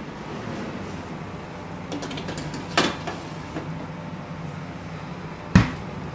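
A stainless-steel under-counter fridge being opened and a metal tray slid onto its rack with a clank about three seconds in, then a heavy thump as the door shuts near the end, over a steady kitchen hum.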